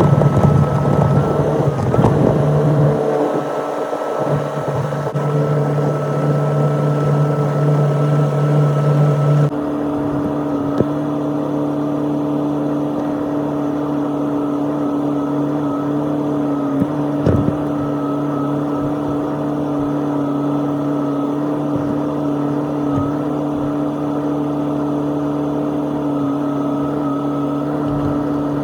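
Excavator engine running with a steady drone; its pitch shifts abruptly about nine and a half seconds in, and a couple of brief knocks sound over it.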